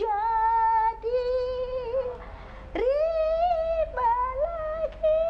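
A woman singing long, held wordless notes with a slight waver in pitch, and a brief break a little past the middle. In places a second, lower held note sounds alongside.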